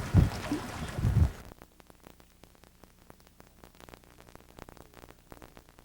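Wind buffeting the microphone aboard a sailboat, a low rumble with irregular bumps, for about a second and a half; then it cuts off abruptly to near silence with faint scattered clicks.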